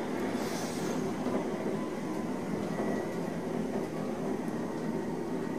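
Steady running noise inside an Otis Autotronic traction elevator cab as the car travels down the hoistway.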